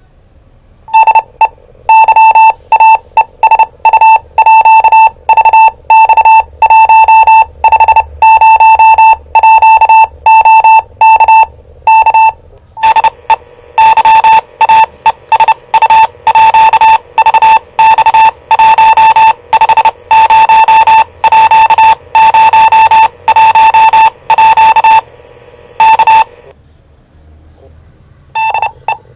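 A loud tone of about 900 Hz keyed on and off in an irregular pattern of short and long beeps, like Morse code, from the speaker of a Yaesu VX-150 VHF handheld radio. Partway through, a steady receiver hiss joins it, and the beeping stops a few seconds before the end.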